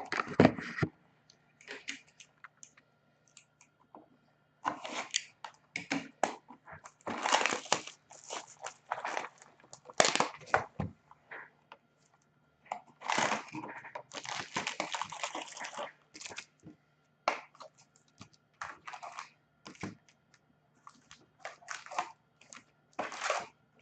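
Plastic wrapping on a hockey card box and packs being torn open and crinkled in irregular bursts.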